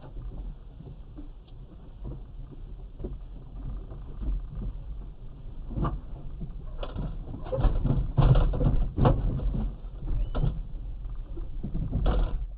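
Car interior as picked up by a dashcam: a low steady rumble, with a string of knocks and thumps from about six seconds in, densest a second or two later and again just before the end.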